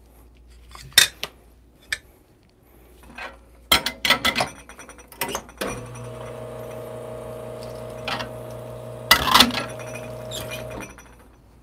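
Clinks and knocks of metal cups and tools being handled, then an espresso machine's pump hums steadily for about five seconds as water runs through the group head, with a loud clatter near the end of the hum.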